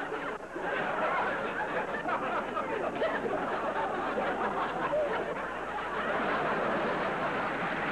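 Studio audience laughing and chuckling, a dense, steady crowd sound with a brief dip just after the start.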